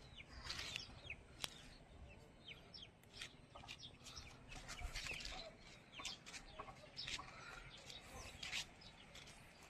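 Faint scattered bird calls: many short, high chirps, some falling in pitch, with a few clucks among them.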